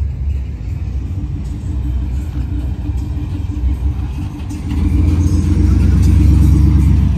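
Two-door Chevrolet Tahoe's engine running as it rolls slowly past, growing louder and fuller over the last couple of seconds as it comes alongside.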